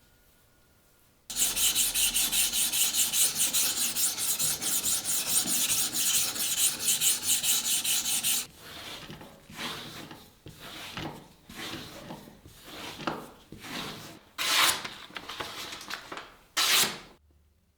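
Abrasive rubbing on the knife: rapid, even back-and-forth strokes that start about a second in. From about eight seconds in they give way to slower, separate strokes, two of them louder near the end.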